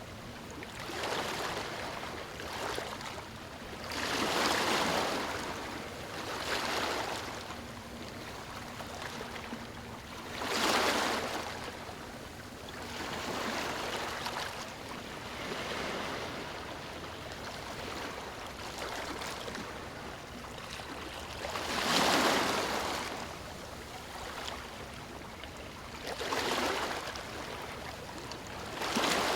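Waves breaking on a stony shore: a steady wash of water with a surge every few seconds as each wave comes in, a few of them much louder than the rest.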